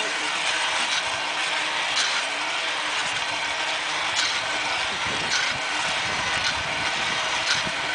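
Cable lift carriage running along its overhead cable: a steady mechanical rushing with sharp clicks every second or two.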